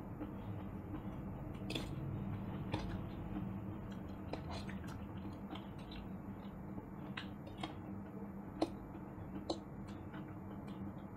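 Close-up eating of hakka noodles with forks: chewing and mouth noises, with scattered sharp clicks of forks against steel plates over a steady low hum.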